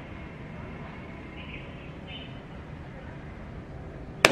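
A few faint bird chirps over a quiet outdoor background. Near the end comes a single sharp shot from an FX Crown Continuum PCP air rifle.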